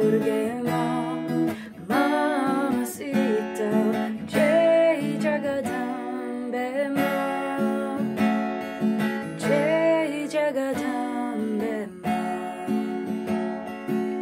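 Acoustic guitar strummed steadily, with a woman singing a wavering melody over it in several short phrases.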